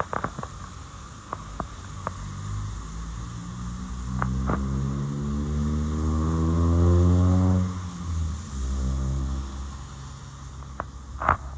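A vehicle engine running and speeding up, its pitch rising gradually from about four seconds in. It is loudest around seven seconds, cuts off abruptly, then runs again briefly. A few sharp knocks come near the end.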